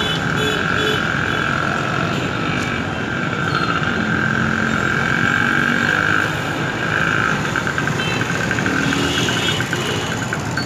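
Busy street traffic: small motorcycle engines and a car passing close by, over a steady high-pitched buzz that turns into a rapid pulsing for a couple of seconds past the middle.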